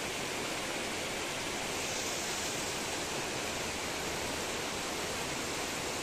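Small rocky stream cascading over mossy boulders: a steady rush of running water.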